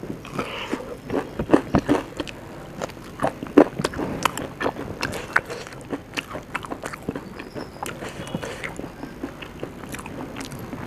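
A person eating close to the microphone: irregular crunching bites and chewing clicks throughout, the loudest crunches about one and a half and three and a half seconds in.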